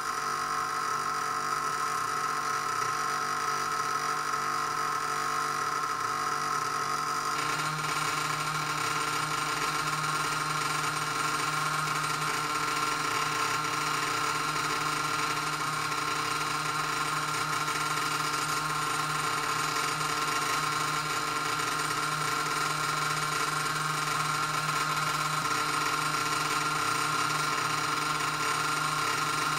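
High-voltage induction coil powering a Crookes tube, buzzing steadily; the buzz shifts slightly in tone about seven seconds in.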